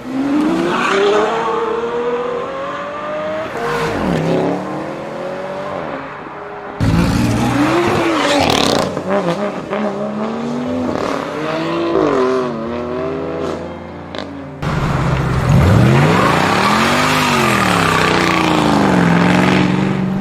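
Supercar engines revving in three short clips cut one after another. The engine note climbs steadily for the first few seconds, then drops. After that come quick rises and falls in revs, and a last clip that swells up and back down before holding steady.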